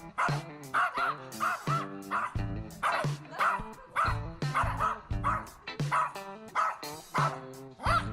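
German Shepherd dog barking and yipping over and over in short calls, over background music with a beat.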